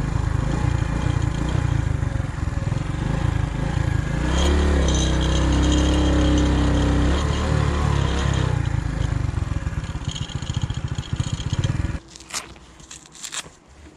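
Motorcycle engine running with road noise as the bike pulls over to stop. About twelve seconds in the engine cuts off abruptly, followed by a few sharp clicks and rattles.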